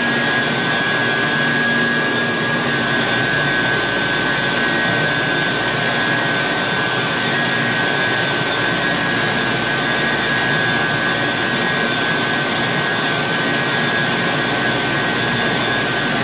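Automatic powder-liquid mixer running at speed, its agitator stirring a white powder batch in a stainless-steel bowl: a steady rushing noise with a constant high whine over it.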